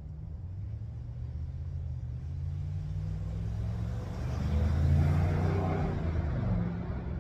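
A low, droning motor sound with several steady tones. It swells to its loudest about five seconds in, then eases off, as a passing motor would.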